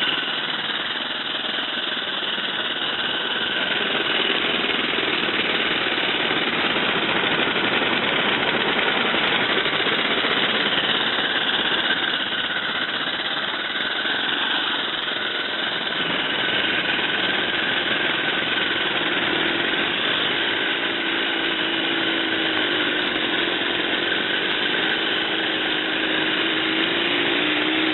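1-inch scale Fowler ploughing engine, a live-steam model, running steadily with a dense hiss of steam and exhaust. A low wavering tone joins in during the last quarter.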